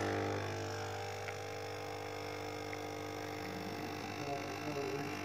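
Capsule espresso machine brewing a small cup: a steady pump hum that drops in level just under half a second in, then carries on more quietly.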